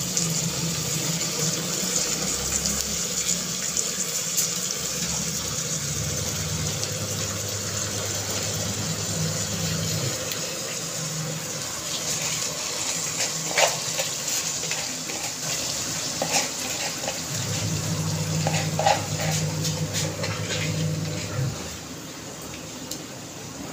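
Washed, still-wet rice sizzling in hot ghee in a pressure cooker, a steady hiss, with a few sharp scrapes and knocks of a spoon against the pot in the second half.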